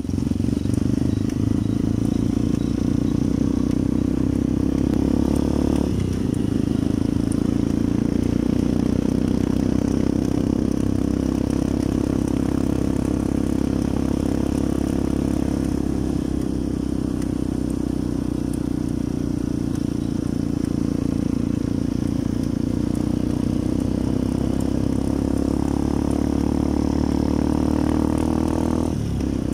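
Motorcycle engine running steadily at road speed, heard up close. The engine note dips briefly about six seconds in and again near the end.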